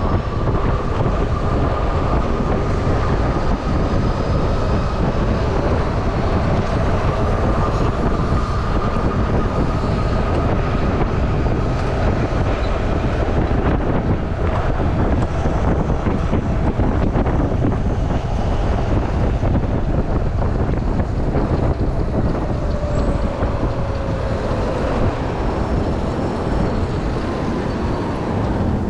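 Wind and road rumble on the microphone of a moving electric bike: a steady rushing noise, heaviest in the low end, with a faint high whine through the first half.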